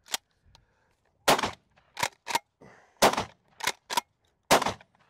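Three shots from a Rock Island All Gen 12-gauge pump-action shotgun, about a second and a half apart, fired with 3-inch high-velocity #4 shot shells. Between shots the pump is racked back and forward, two quick clacks.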